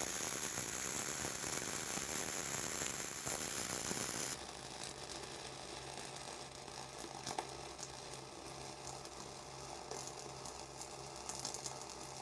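Flux-core wire-feed arc welding on pipe: the arc crackles and sizzles steadily while a cap pass is laid. The sound drops in level about four seconds in and goes on with scattered sharper cracks.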